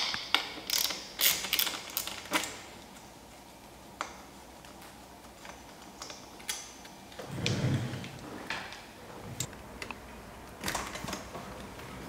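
Small hand ratchet with a hex bit clicking as it turns out the bolts of an e-bike battery mount to remove the controller: a quick run of clicks in the first couple of seconds, then scattered clicks, with a dull knock about seven and a half seconds in.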